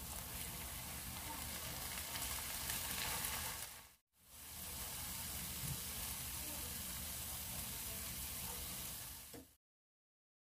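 Chopped-onion pizza sauce sizzling in a frying pan as it is stirred and cooked down. The sizzle breaks off for a moment about four seconds in, then stops shortly before the end.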